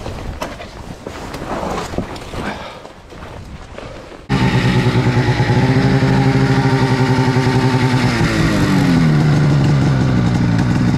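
Branches cracking and scraping as a fallen tree is dragged aside by hand, then, about four seconds in, a snowmobile engine running loud at steady revs, its pitch dropping about eight seconds in as it slows.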